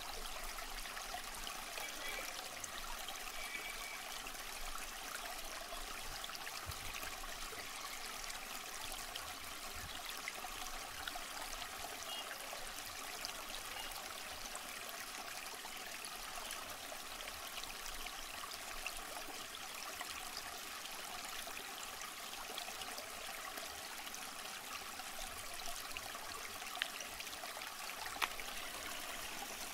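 Water of a small canal flowing steadily past concrete sluice pillars, with an even babbling rush.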